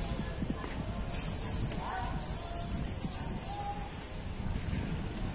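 Birds chirping: quick runs of short, high chirps, several a second, about a second in and again from about two to three and a half seconds in, over a low steady street rumble.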